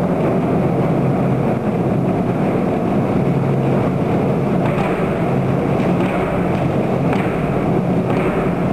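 A group of Chinese barrel drums played together in a continuous fast roll, a steady dense rumble with no separate beats standing out.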